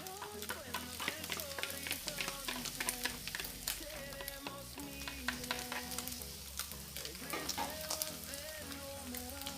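Sliced bamboo shoots with onion, garlic and egg sizzling in a frying pan while being stirred, with frequent sharp clicks and scrapes of the spatula against the pan.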